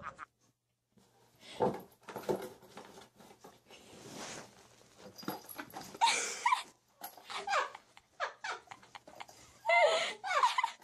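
A pet with its head stuck in a plastic cup, making short whining calls that fall in pitch, with louder runs of calls about six seconds in and again near the end, among rustling.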